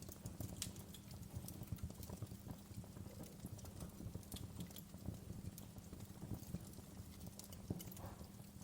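Wood fire burning in a fireplace: logs crackling steadily, with irregular sharp pops of embers, one a little louder near the end.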